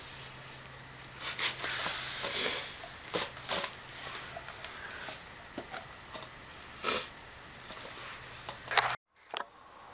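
Irregular clicks, knocks and rustling of small parts and tools being handled, over a faint steady hum. The sound drops out briefly near the end.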